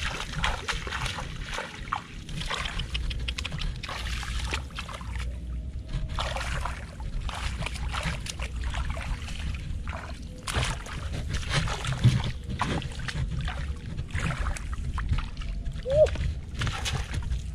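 Bare feet and hands sloshing and splashing through ankle-deep water in a flooded grassy field, in a dense run of short irregular splashes.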